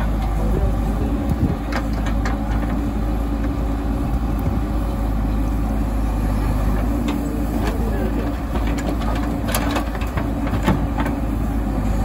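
JCB backhoe loader's diesel engine running steadily under load as the backhoe digs soil and stone and swings the bucket over to the lorry, with a number of sharp clanks and knocks from the bucket and falling stones.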